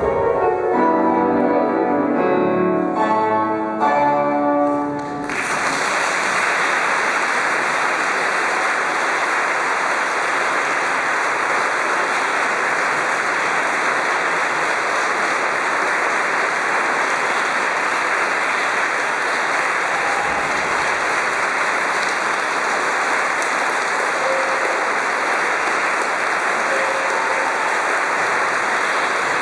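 Music closes during the first five seconds, then an audience applauds steadily for the rest of the time.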